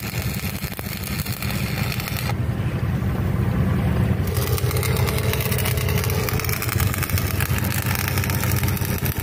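Electric arc welding crackling and hissing on a steel boat's propeller shaft housing, with a break of about two seconds near the third second before the arc strikes again. A steady low hum runs underneath.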